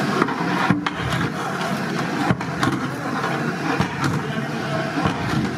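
A long-handled paddle stirring thick haleem in a large metal cooking pot, with occasional sharp knocks of the paddle against the pot, over a steady background noise.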